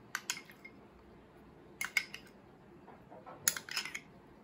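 A spoon clinking and tapping against a small glass bowl while scooping out mayonnaise, in three short clusters of light clicks.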